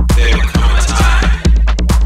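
Electro dance music in a DJ mix: a heavy, steady bass line under a fast electronic beat. For about the first second and a half the sharp drum hits thin out beneath a swirling high synth sweep, then the beat comes back in.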